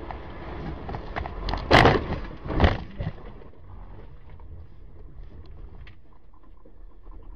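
Car crash on a wet road: steady road and engine noise, then two loud bangs of impact about a second apart and a smaller knock just after. Quieter road noise with scattered small clicks and rattles follows.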